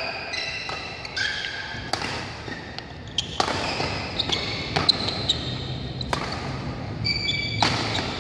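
Badminton doubles rally: sharp racket-on-shuttlecock hits roughly every second, with sports shoes squeaking on the court mat, echoing in a large hall.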